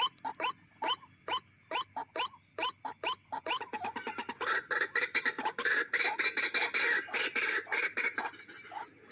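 White-breasted waterhen (ruak-ruak) calls from a lure recording, of the kind played to draw the birds in as if to a mate or rival. It begins as a run of rising croaking notes, two to three a second, and turns into a faster, denser chattering about three and a half seconds in.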